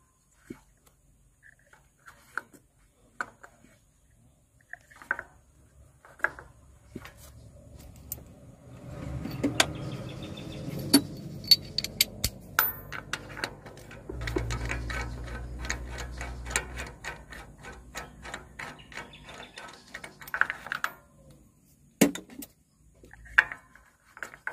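Hand tools clicking and knocking on the engine as the spark plugs are taken out, with a long run of quick, even clicks in the middle.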